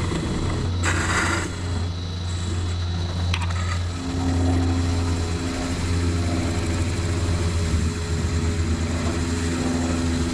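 Wood lathe motor running with a steady low hum, with a short burst of a turning tool scraping the spinning live-oak top about a second in.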